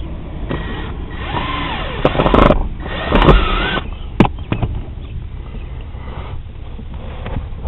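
Power drill/driver running in two short bursts, its motor whine rising and falling, driving screws back in to hold the blower fan control module; a sharp click follows.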